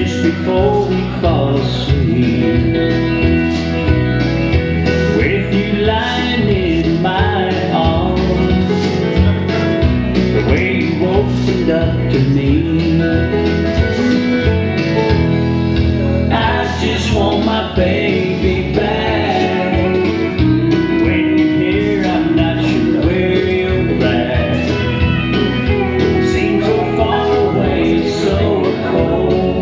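Country song with a singing voice, guitar and a steady beat, playing without a break.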